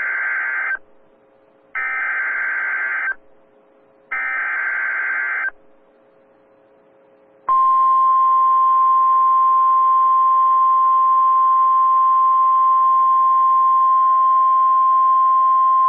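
NOAA Weather Radio alert signal: the screeching digital SAME data header sent three times in short bursts, the first already under way, then after a pause of about two seconds the steady, loud, single-pitched warning alarm tone, which marks the start of a newly issued warning.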